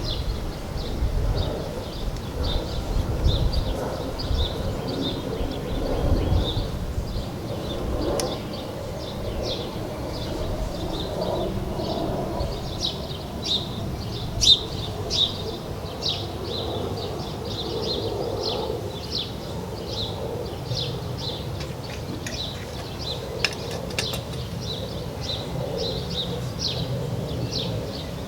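A bird chirping over and over in short, evenly spaced chirps, about two a second. Wind rumbles on the microphone in the first several seconds, and a few sharp clicks come through later.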